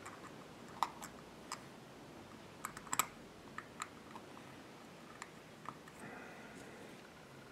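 Faint, scattered small metal clicks and ticks of a Walbro WF carburetor and its throttle plate screw and washer being handled and fitted by hand, with a quick cluster of sharper clicks about three seconds in.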